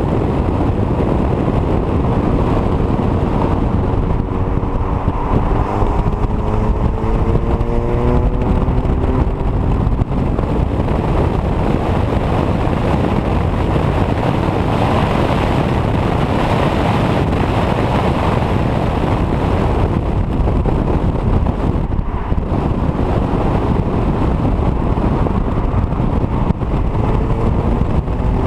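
Wind rushing over the microphone of a camera mounted on the outside of a 2015 VW GTI at track speed, with tyre and road noise. The GTI's engine note is heard faintly, rising slowly as the car accelerates, from about four to ten seconds in and again near the end.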